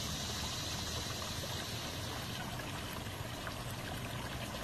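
Water from Aquascape spillway bowl fountains spilling over the lip of an upper bowl into a lower one, which bubbles: a steady splashing trickle.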